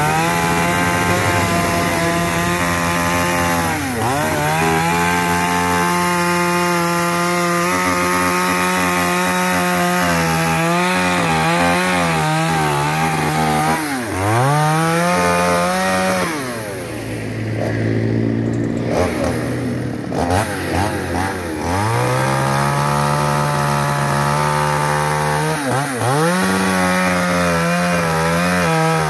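Two-stroke chainsaw ripping a log lengthwise at high revs, its pitch sagging and recovering again and again as the chain bogs into the wood. About halfway through it drops to a lower speed for a few seconds, then revs back up and cuts on.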